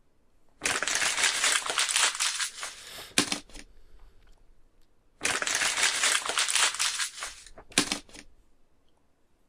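Clear plastic packaging crinkling and rustling as hands pull it open and off, in two long bouts of about two seconds each, starting about a second in and about five seconds in, with short crackles after each.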